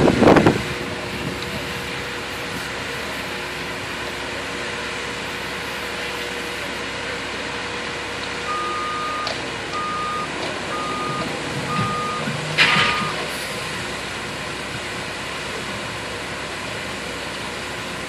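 Concrete mixer truck running steadily while it pours concrete down its chute. About halfway through, a reversing alarm gives five short beeps about a second apart, and a sharp clatter sounds near the last beep.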